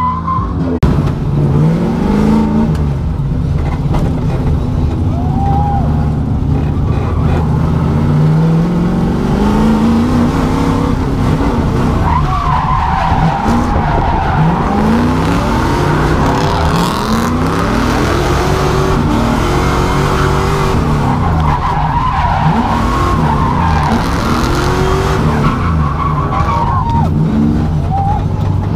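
LS V8 engine of an E36 BMW drift car revving up and down again and again through a drift run, over the noise of tyres skidding and squealing.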